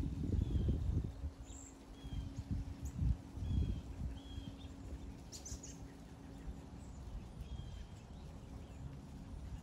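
Several short, high bird chirps spaced a second or more apart over low, gusty rumbling of wind on the microphone. The rumbling is strongest in the first half, and there is a brief crackle about five seconds in.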